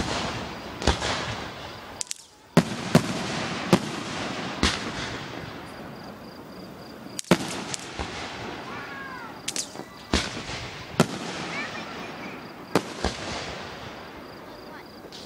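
Fireworks display: aerial shells going off in sharp bangs, about a dozen at irregular intervals, over a continuous rushing noise.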